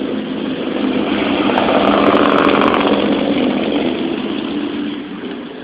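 A car driving past on a wet road: engine and tyre hiss swell to a peak about two to three seconds in, then fade away.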